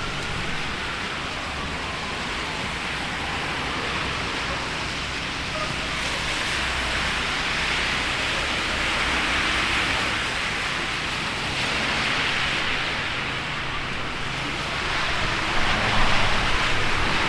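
Heavy rain and gusty wind on a city street: a steady hiss that swells and eases, louder near the end, with a siren dying away right at the start.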